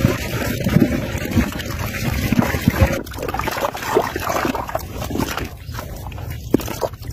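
Catfish thrashing in shallow muddy water, irregular splashing and sloshing.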